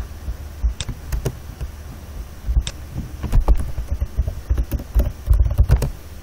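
Computer keyboard being typed on: irregular key clicks with dull low thuds, and a quicker run of keystrokes about five seconds in.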